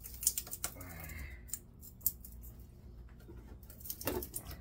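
Needle-nose pliers snipping and clicking as they work copper wire out of an electric motor: a string of sharp, uneven metal clicks.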